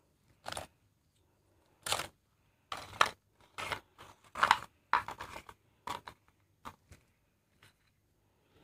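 Plastic biscuit wrappers crinkling and biscuits being handled onto a plate, in a dozen or so short, irregular rustles.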